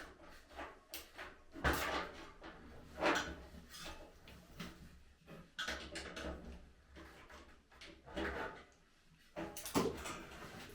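Irregular knocks and clunks of barbecue parts and screws being handled during assembly, with sharper knocks about 2 s, 3 s and near the end.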